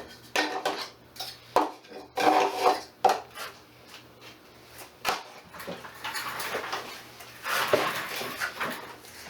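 Hard objects clattering and knocking as tools and small parts are picked up and set down, a string of sharp knocks in the first few seconds, then a couple of seconds of denser handling noise near the end.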